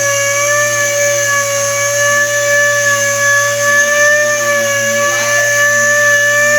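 Power sander sanding primer on a car's quarter panel, running with a steady high whine.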